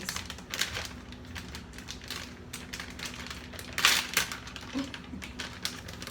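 Irregular light clicks and rustling of hands spreading a layer of cheese over the casserole, with one louder rustle about four seconds in.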